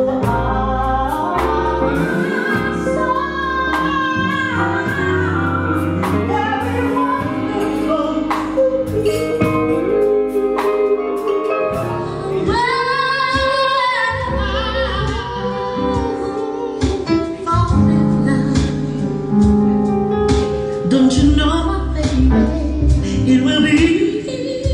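A woman singing live into a handheld microphone over instrumental backing. About halfway through, the sound changes abruptly to another live performance of her singing with a keyboard player.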